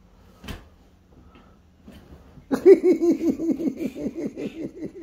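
A person laughing in a quick run of short, repeated 'ha' sounds, starting about two and a half seconds in. A single soft knock about half a second in.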